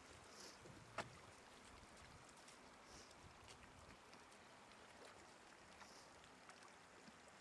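Near silence: a faint steady outdoor hiss, with one sharp click about a second in and a few faint high chirps spaced a few seconds apart.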